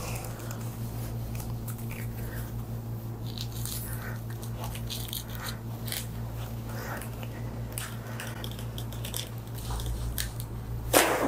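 A nylon Y-strap traction harness is fitted and adjusted around a patient's head, making soft rustling and small scattered clicks over a steady low hum. Near the end a sudden loud crack comes as the strap is pulled for a neck adjustment.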